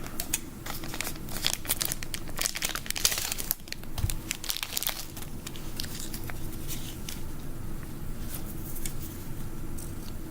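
Packaging crinkling and tearing as an item is unwrapped by hand: an irregular run of sharp crackles and rustles, busiest in the first few seconds and thinning out later.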